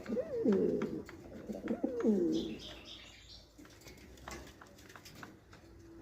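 Buchón Rafeño pouter pigeon cooing: two gliding coo phrases in the first two and a half seconds, then quieter with scattered faint clicks.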